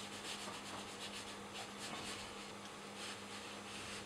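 Faint soft scratching of a watercolour brush stroking the paper, a string of short irregular strokes, over a low steady hum.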